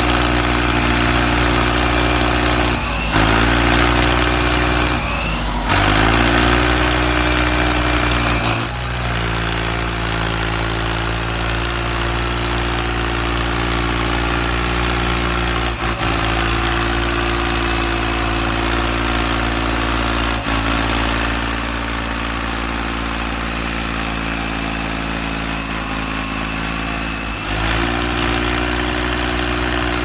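Diesel tractor engine sound for a toy tractor towing a stuck truck: the engine runs steadily and revs up in steps several times, about 3, 5 and 9 seconds in and again near the end.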